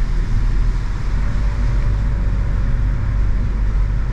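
Steady road noise inside the cabin of a moving Volkswagen Jetta TSI: a low rumble with a fainter hiss above it.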